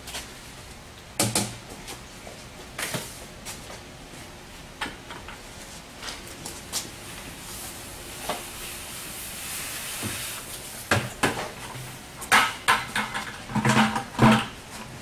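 Plastic buckets knocked and set down a few times, then liquid poured from a bucket into a plastic mixing drum for about two seconds, followed by a quick run of knocks and clatter as the buckets are handled.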